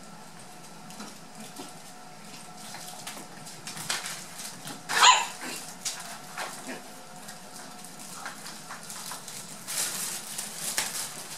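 Seven-week-old toy poodle puppy playing with a plush toy rat: soft scuffling and rustling on a wooden floor, with one short, loud puppy yip about five seconds in and a flurry of scuffling near the end.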